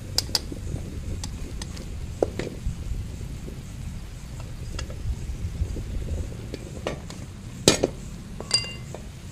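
Steel kadhai being shaken and swirled by its handles on a gas burner, the pan knocking and scraping on the burner stand over a steady low sizzle and rumble. A loud metallic clank about three-quarters through, which the cook then says was one of the pan's handles breaking, followed by a short metallic ring.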